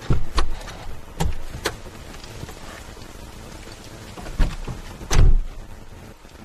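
A few knocks and thumps inside a parked car as someone climbs out, then the car door shutting with a heavy thud about five seconds in.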